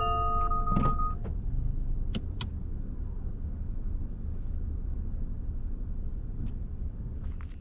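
Low, steady rumble of a car, as heard from inside it, cutting off near the end. A few sustained chime tones sound in the first second.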